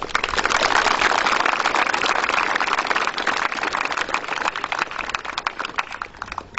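A crowd applauding: dense clapping that starts suddenly and thins out toward the end.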